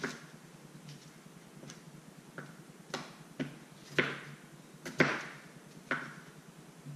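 Kitchen knife cutting potatoes on a cutting board: about nine sharp knocks of the blade hitting the board, roughly one a second, the loudest two near the middle.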